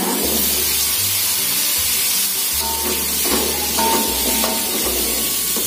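Cubed potatoes and spice paste sizzling in a hot steel wok while a spatula stirs them, a steady frying hiss.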